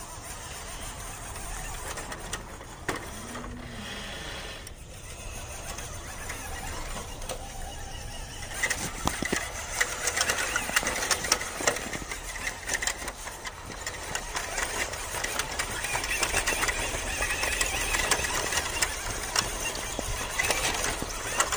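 WPL B-1 1:16 RC truck's small electric motor and geared drivetrain whirring as it crawls over dirt, with frequent small crunches and clicks from the tyres on soil and grit. It gets louder and busier about eight seconds in as the truck drives close by.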